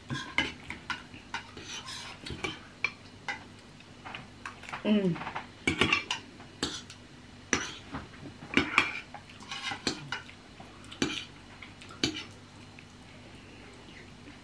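Metal spoons clinking and scraping against bowls while two people eat, in scattered irregular clicks and short scrapes.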